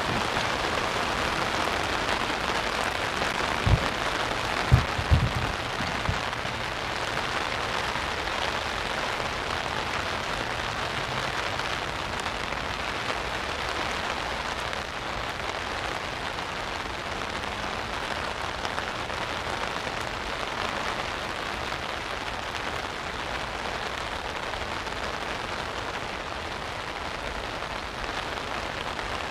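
Steady heavy rain falling, heard from under an umbrella with the drops hitting the canopy overhead. A few short low thumps come about four to five seconds in.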